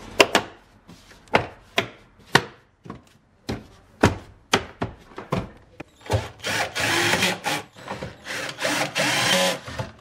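Sharp clicks and knocks of plastic cargo-area trim being handled and pressed into place, then a cordless screwdriver driving screws in two runs of a second or so each, about six seconds in.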